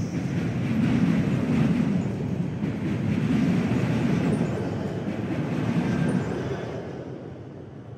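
A double-deck CityElefant electric passenger train passing close by, its wheels running on the rails in swells as the cars go past. The sound fades away over the last two seconds once the end of the train has gone by.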